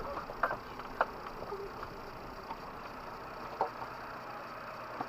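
Steady low rumble of an off-road vehicle heard from inside the cab, with a few brief knocks.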